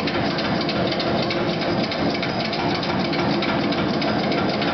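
80-pound mechanical helve power hammer, a modified Appalachian "Rusty" design with railroad-track dies, striking red-hot automobile coil spring steel in a rapid, steady run of blows.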